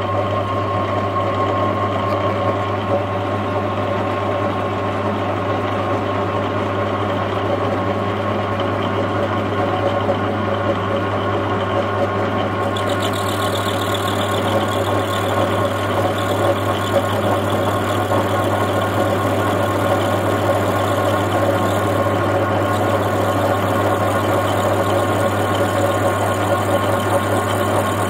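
Metal lathe running steadily while it turns down a nut held in its chuck, with a steady hum and tones. About 13 seconds in, a higher hiss joins the sound.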